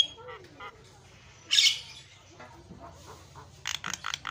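Javan myna giving one short, harsh squawk about a second and a half in, then a quick run of short clicking notes near the end.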